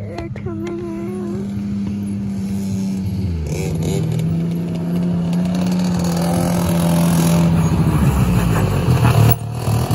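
Arctic Cat Wildcat side-by-side (UTV) engine running steadily as the machine drives up. Its note drops slightly about three seconds in, and it grows louder as it comes close.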